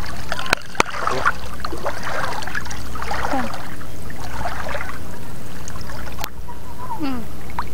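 Wading through shallow seawater: a steady wash of water sloshing around the legs, with a few sharp clicks, two about half a second in and one about six seconds in.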